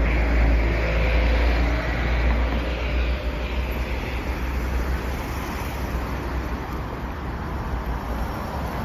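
City road traffic: cars and buses passing, with a heavy low rumble in the first few seconds that eases off.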